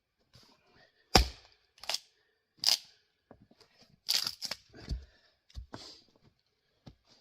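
Split grand fir firewood knocking and cracking: a run of about eight sharp, irregularly spaced wooden knocks, the loudest about a second in.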